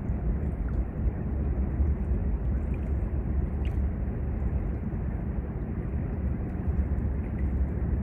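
Steady low outdoor rumble of riverside ambience, with a brief faint high note about three and a half seconds in.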